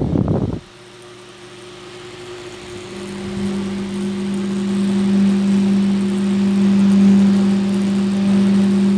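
Small 4-inch Massey electric fan running, its motor giving a steady buzzing hum that swells loud from about three seconds in and holds. The uploader tags the buzz as an electrical malfunction and says the fan is over-revving. A brief rustling clatter opens the sound and cuts off sharply under a second in.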